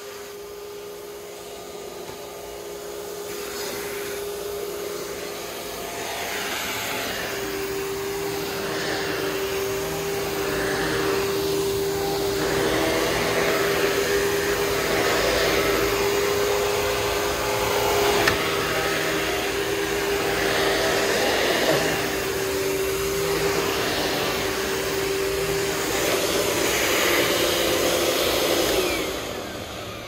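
Panasonic MC-V574500 (Power Wave) upright vacuum cleaner running, a steady motor whine under an airflow hiss that swells and eases again and again. The motor sound drops away near the end.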